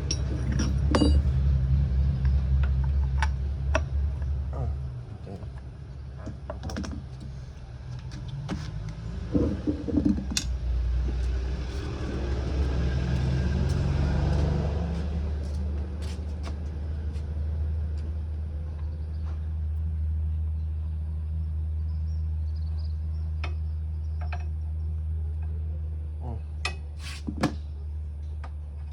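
Hero Glamour motorcycle's single-cylinder engine running steadily, its note changing for a few seconds around the middle, with scattered sharp metallic clicks over it.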